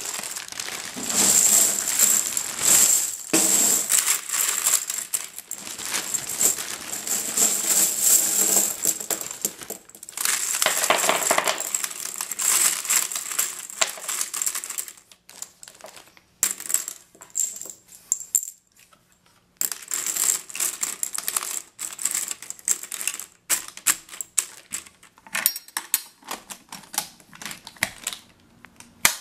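Loose brass 5.56 mm rifle cartridges pouring out of a plastic bag into a steel .30 cal ammo can, a dense jingling clatter of metal on metal. From about halfway it thins to separate clinks as the rounds are shifted and settled by hand.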